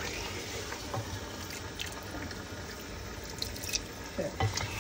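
Chicken and spice masala sizzling in hot oil in a cooking pot: a steady hiss with a few light clicks.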